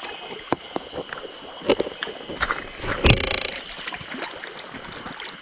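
Mountain stream running steadily, with a few sharp knocks and a louder splashing burst about three seconds in.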